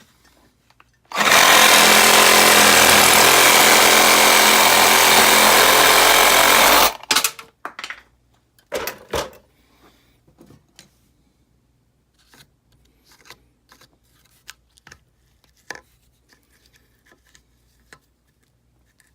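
A power tool runs loudly and steadily for about six seconds, then cuts off. Scattered clicks and knocks of handling follow.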